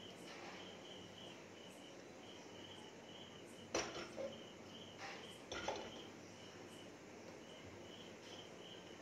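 Faint chirping of a cricket, a short pulsing call repeating a few times a second, with a few knocks and scrapes about four to six seconds in as the metal kadai is gripped and shifted on the gas burner.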